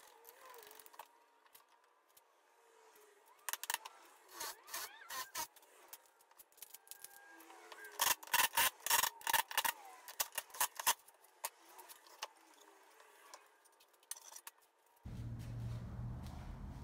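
Cordless impact driver driving screws into plywood in a run of short loud bursts, about three seconds long. Before it come scattered light clicks and knocks of wood and screws being handled. Near the end a steady low hum starts.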